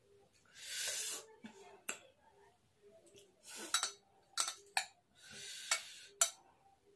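Metal spoon clinking against the inside of a drinking glass several times while fishing a lime slice out of it, with two short rushes of noise among the clinks.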